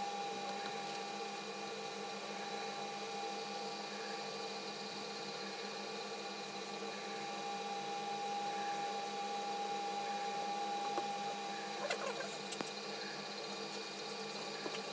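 Steady machine hum made of several held tones, with a high whine most prominent through the middle, and a few short clicks near the end.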